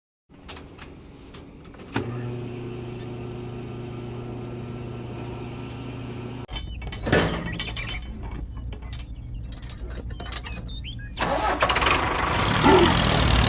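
A mini tractor's motor running with a steady hum, preceded by a few clicks. The sound changes abruptly about halfway, then turns louder and fuller near the end.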